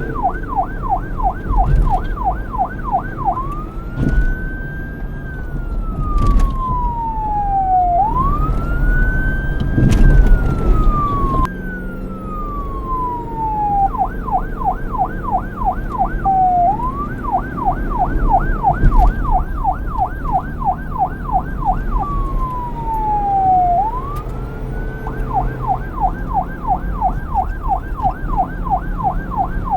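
Police car siren switching back and forth between a fast yelp, rising and falling several times a second, and a slower wail whose pitch climbs and falls over a couple of seconds, with a low rumble underneath.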